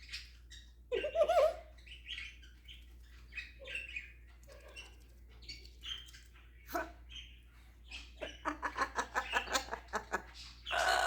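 African grey parrot vocalizing. There is a loud call about a second in, then scattered chirps and clicks, then a quick run of short repeated notes, about six a second, in the last few seconds.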